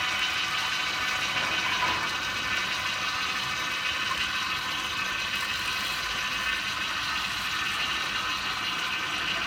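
Vertical slow juicer running steadily, its motor and auger pressing celery and apple pieces fed into the chute, with a steady whine over a noisy grind.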